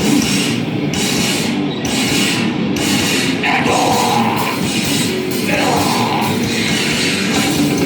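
Live band playing loud, heavily distorted, harsh music, a dense unbroken wall of sound, with two brief higher-pitched wails near the middle.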